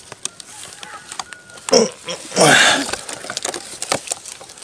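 Split firewood logs knocking and shifting against each other in a woven bamboo doko basket as the load is handled, with scattered clicks and knocks. A short breathy vocal sound comes about two seconds in, like a grunt of effort.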